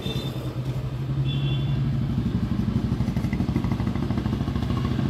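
An engine running steadily with a low, fast-pulsing drone that grows louder over the first second or two and then holds.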